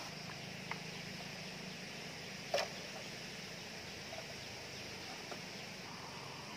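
Steady chirring of insects, with a few light clicks and one sharper knock about two and a half seconds in.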